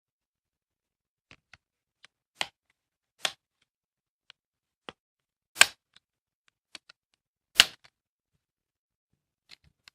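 Plastic snap clips of an Acer Aspire 7551 laptop's LCD screen bezel popping loose as the bezel is pried up by hand: a string of sharp little snaps, about four of them loud, with fainter clicks between.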